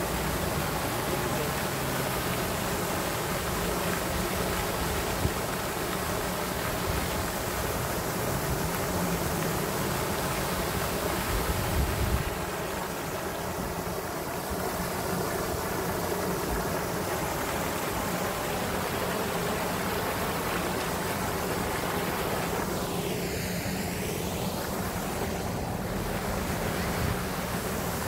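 Steady splashing hiss of a pond's spray fountain falling back onto the water, with some low wind rumble. A sweeping whoosh passes through near the end.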